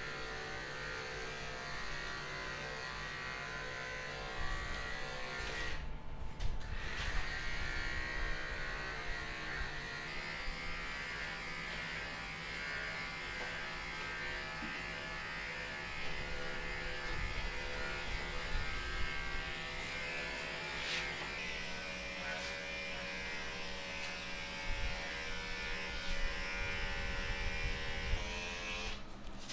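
Corded electric pet hair clipper running steadily as it shears a Pomeranian's coat, a continuous motor buzz whose pitch shifts slightly now and then.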